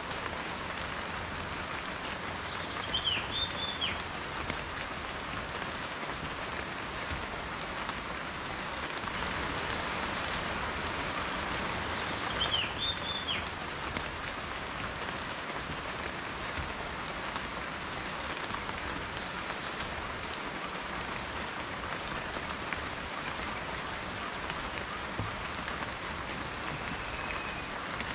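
Steady rain falling, an even hiss of drops. Two short high chirps cut through it, a few seconds in and again about halfway.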